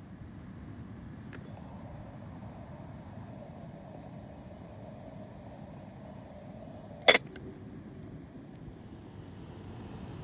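Small gas camping stove burning under a stainless steel cook pot with a low steady hiss, a faint steady high tone above it. About seven seconds in, one sharp metal clank, followed by a fainter tick.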